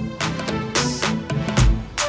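Background music with a steady beat: regular drum hits under short repeating melodic notes.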